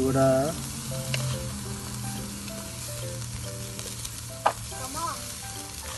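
Meat sizzling on the grate of a small charcoal kettle grill, a steady hiss, with one sharp click about four and a half seconds in.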